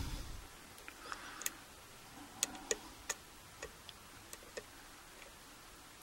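Faint, irregular metallic clicks of a hook pick working the pin stack inside a Master Lock 140 padlock as it is single-pin picked under tension. The clicks come every half second or so for the first four and a half seconds, then thin out.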